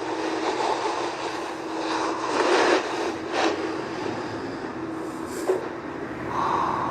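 Steady rumble and noise of a moving train heard from inside the carriage, with a constant hum and a few sharp clicks and knocks.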